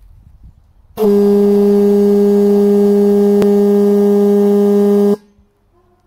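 Vintage International truck air horn, not yet repaired, blown on compressed air at 150 PSI. It gives one steady single-note blast of about four seconds, starting about a second in and cutting off sharply.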